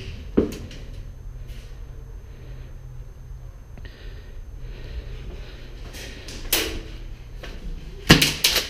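Sharp clacks and knocks against a low steady rumble: a few are spaced through the middle, and a loud cluster near the end is the loudest. That cluster is a Tokyo Marui M870 gas airsoft shotgun firing and being pumped.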